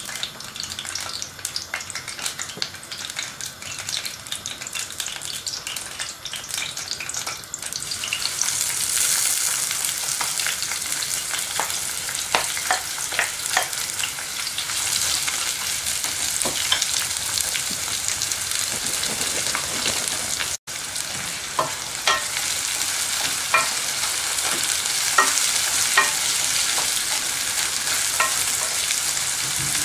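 Oil sizzling in an aluminium pot as whole spices and then sliced onions fry; about eight seconds in the sizzle grows louder and fuller. From then on, a wooden spoon stirring the onions taps and scrapes against the pot over the frying.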